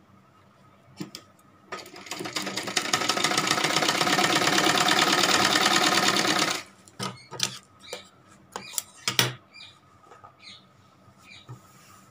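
Sewing machine stitching a seam through light fabric: it starts about two seconds in, runs at a fast, steady stitch rate for about five seconds, then stops. After it come scattered clicks and rustles of the cloth being handled, the sharpest a knock about nine seconds in.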